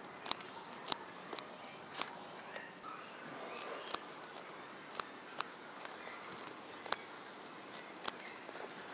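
Small pair of scissors snipping the stems of ponnaganti kura (sessile joyweed) greens: about ten sharp snips at irregular intervals, roughly one a second, with a faint rustle of leaves between them.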